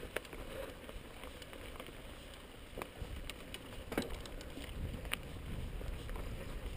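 Mountain bike riding over a dry dirt and stony singletrack: a steady crunch and rattle of tyres and bike over the ground, with several sharp clicks as stones and parts knock, over a low wind rumble on the microphone.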